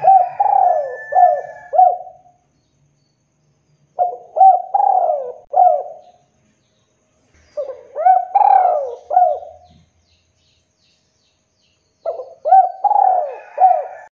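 Spotted dove singing its cooing song: four phrases of several quick, arched coos each, about one phrase every four seconds with silence between them.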